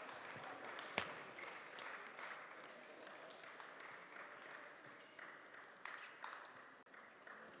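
Table tennis ball clicking off bats and the table in a rally, the sharpest knock about a second in. Scattered lighter ball taps and some light clapping follow.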